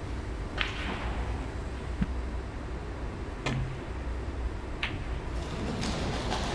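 Snooker balls clicking during play: three sharp clicks of cue tip on ball and ball striking ball, with a fainter knock about two seconds in, over a steady low arena hum.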